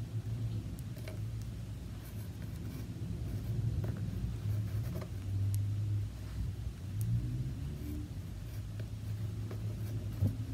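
Faint rustling and light ticks of yarn and a notched weaving loom being handled as pairs of warp threads are tied off in double knots, over a low rumble that swells and dips.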